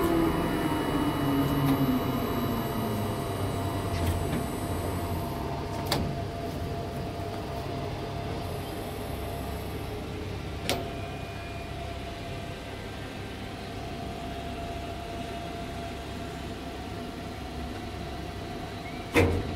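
Electric drive whine of a tower crane, heard inside the operator's cab, winding down in pitch over the first three seconds, then a steady hum with a few sharp clicks.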